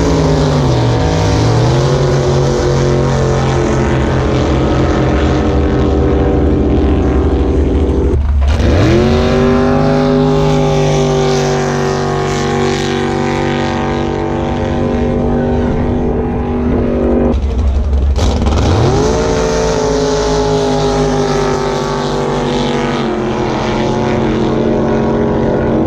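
Racing jet boat engines revving up and running flat out down the lake. The engine note rises and then holds as a loud, steady high-rpm tone, three times over, each run broken off by an abrupt cut.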